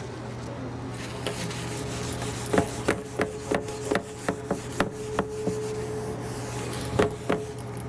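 Marker being wiped off a whiteboard: a steady rubbing with a run of sharper strokes, about three a second, through the middle.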